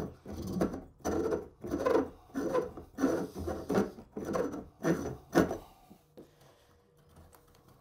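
Reamer scraping the cut end of a 2-inch shower drain pipe in repeated rotating strokes, about two a second, deburring and cleaning the pipe before the gasket goes on. The strokes stop about five and a half seconds in.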